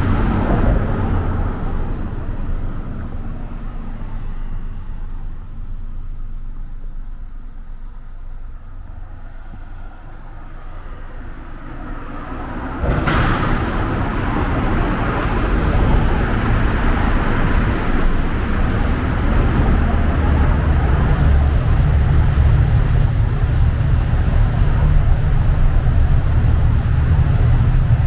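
Low rumble of a vehicle on the move. It grows quieter for several seconds, then jumps louder with a short rushing sound about halfway through and stays loud.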